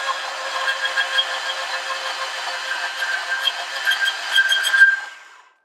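Ryobi 18-volt ONE+ cordless portable band saw running and cutting through a rusty half-inch steel round bar: a steady motor whine with the blade working through the metal, not very loud. About five seconds in the cut finishes, the saw is switched off and winds down.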